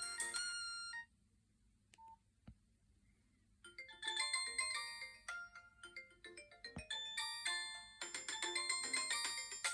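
Preloaded polyphonic ringtones playing from a Nokia 6136's speaker: one tune of short notes ends about a second in, followed by a pause of about two and a half seconds with a few faint clicks. Then another tune starts, getting busier and louder about eight seconds in.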